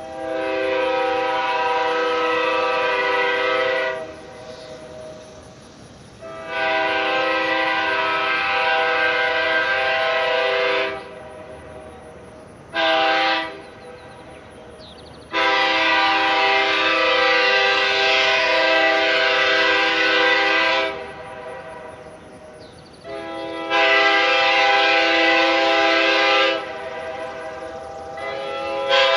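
Nathan K5H airchime train horn, five bells with the number 5 bell machined back to its correct, sharp note, sounding its steady chord in separate blasts: a long blast, a second long one, a short toot, then two more long blasts. Another short toot starts right at the end.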